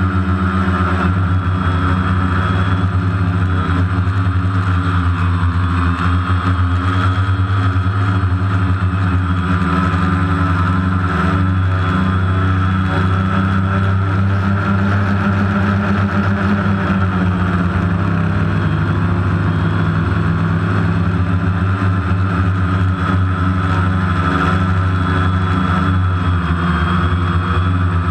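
Multicopter's electric motors and propellers running, heard up close from its onboard camera: a loud, steady hum with a high whine above it, the pitch shifting slightly partway through.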